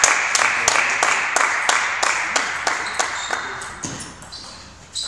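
Table tennis ball clicking off paddles and the table: a fast, even series of sharp clicks, about three a second, that thins to a few scattered clicks after about three seconds, over background noise that fades away.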